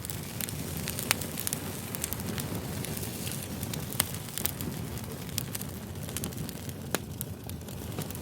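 Firewood burning: a steady low rush of flames with irregular crackles and sharp pops, the loudest about one, four and seven seconds in.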